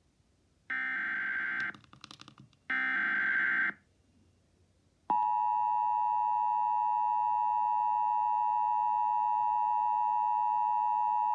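Emergency Alert System tones broadcast over AM radio: two one-second bursts of the SAME digital header data, then after a short pause the steady two-tone EAS attention signal starts and holds.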